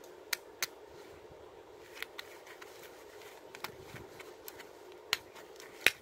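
Leatherman Free P4 multitool handled in gloved hands: a series of sharp metallic clicks and snaps as its handles and pliers jaws swing open and fold shut, the loudest snap just before the end.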